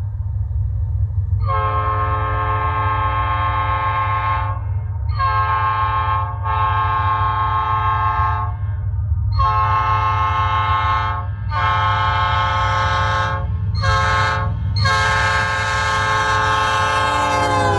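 Multi-chime locomotive air horn blown in a series of seven blasts, most of them long with a couple of short ones. Each blast is one loud steady chord. On the last and longest blast the chord sags in pitch as the air is cut off. A steady low hum runs underneath.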